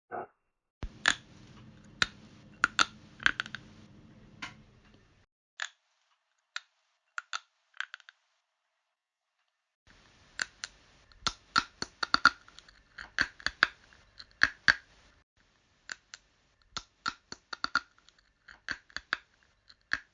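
A run of sharp, irregular clicks and taps, like keys being struck, in uneven bursts. A few come over a faint hum at first, then there is a pause of several seconds. A dense run follows, thinning out toward the end.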